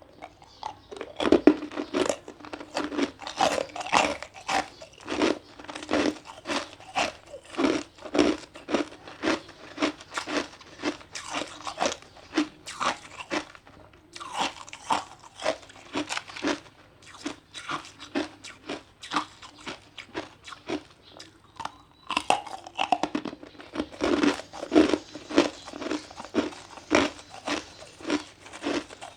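Ice being bitten and chewed close to the microphone: a quick run of sharp crunches, several a second, with a short pause about two-thirds of the way through.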